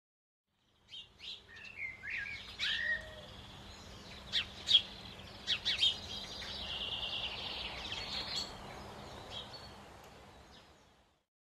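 Wild birds chirping and calling over a steady background hiss: several sharp chirps and short sweeping calls, then a rapid high trill. The sound fades in about a second in and fades out near the end.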